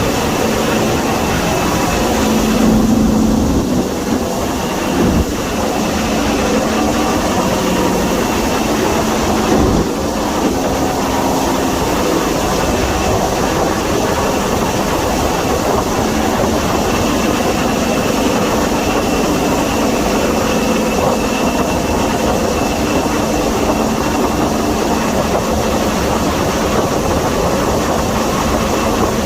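Class 55 Deltic locomotive's two Napier Deltic 18-cylinder two-stroke diesel engines working flat out, heard from on board the train: a loud, steady roar. Two brief knocks cut through it about 5 and 10 seconds in.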